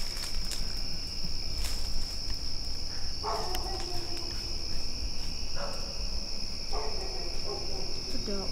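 Crickets singing in a steady, high-pitched chorus. A few short low sounds, each about a second long and falling in pitch, come in after about three seconds.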